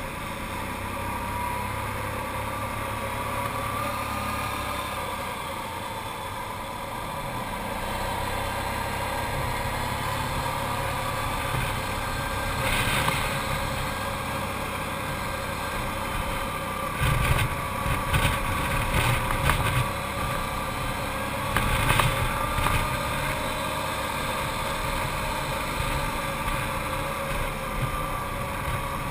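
An Arctic Cat TRV 1000 ATV's V-twin engine running at a fairly steady speed on the climb, its pitch drifting slightly up and down. In the second half come several short, loud bursts of noise.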